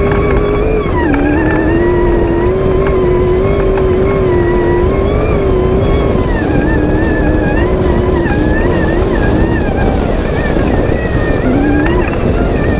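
V8 off-road race buggy engine running hard at high revs, heard onboard. The revs dip briefly about a second in, again around six and a half seconds, and once more near the end before climbing again, over a heavy rushing noise.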